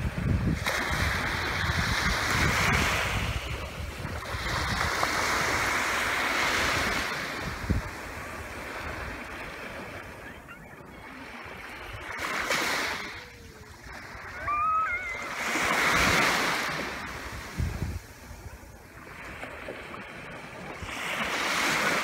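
Small sea waves washing onto a sandy beach, each wave swelling and falling back every few seconds.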